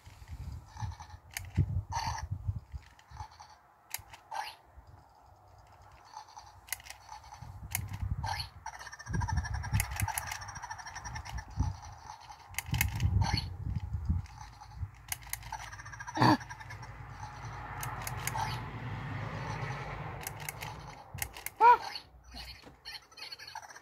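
Handheld electronic toy game handled and shaken, giving short electronic beeps and many small plastic clicks, over a low rumble. The two loudest beeps come about two-thirds of the way in and near the end.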